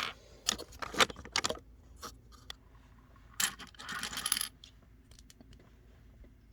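Small plastic Lego pieces clicking and clattering against each other and the table: several separate sharp clicks in the first couple of seconds, then a denser rattle of loose pieces about halfway through.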